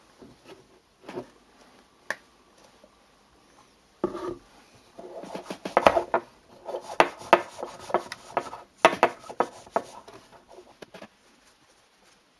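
Small hard parts being handled and rubbed on a workbench: a few scattered clicks, then from about four seconds in a dense run of clicks and scraping that dies away near the end.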